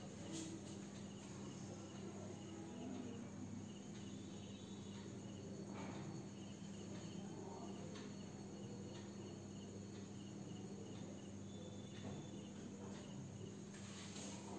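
Faint crickets chirping in a steady repeating pattern, over a low electrical hum.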